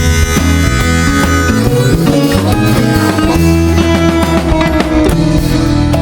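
Background music: an upbeat instrumental with drums and plucked strings, a harmonica or fiddle-like lead, in a bluegrass or country style.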